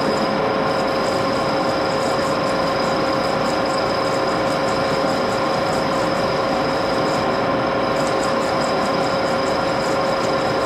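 Axelson engine lathe running steadily with a constant gear whine and a faint, rapid high ticking.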